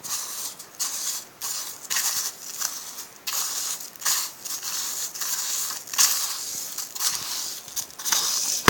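Fingers pressing and mixing fine pool sand into a lump of glue slime in a plastic tub: gritty crunching and scraping in irregular strokes, about one or two a second.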